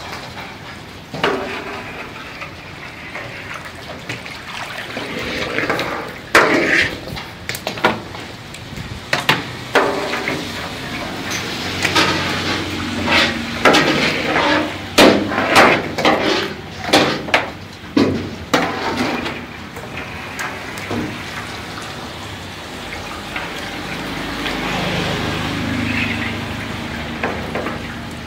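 A large metal ladle scooping thin red sauce from a big cooking pot and pouring it back in, splashing. The pours and splashes come thick and fast from about six to nineteen seconds in, then ease off.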